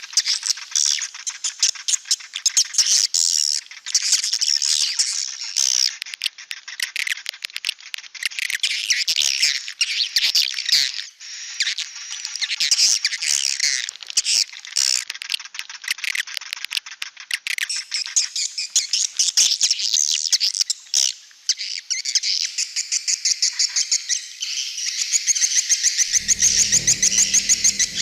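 Edible-nest swiftlets calling in a dense, overlapping chorus of rapid high twittering chirps: a swiftlet-house lure recording played to call a flock in. Near the end a low hum comes in under the calls.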